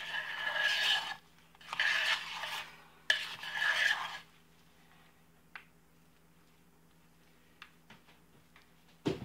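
Wooden spoon stirring thick, saponified hot-process soap in a slow-cooker crock: three scraping strokes in the first four seconds, then a few faint clicks and a short knock near the end.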